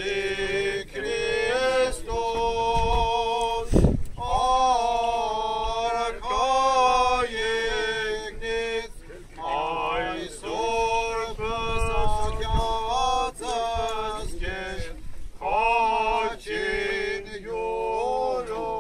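A man chanting an Armenian church hymn unaccompanied, in long held and gliding notes phrase after phrase, with short breaks between. Wind now and then thumps on the microphone.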